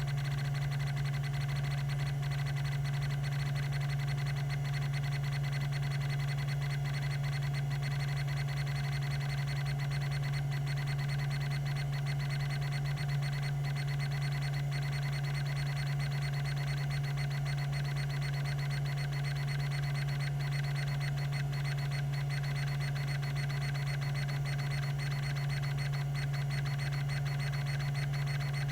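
Tandon TM362 hard drive spinning steadily at its 3600 RPM, giving a constant low hum with a thin high whine over it.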